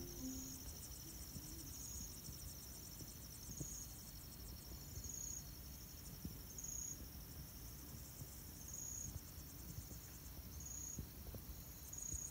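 Insects, most likely crickets, chirping in a steady, faint, high-pitched chorus, with a louder pulse about every one and a half to two seconds; a faint low rumble sits beneath.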